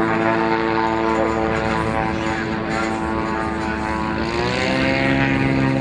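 Propeller aircraft engine running loud and steady; its pitch drops about four seconds in.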